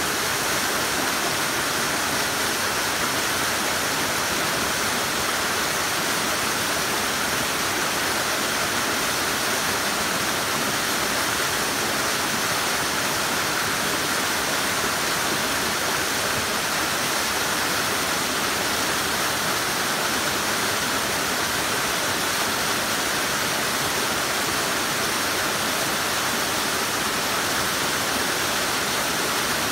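Waterfall cascading down a steep rock face, a steady unbroken rush of white water that holds the same level throughout.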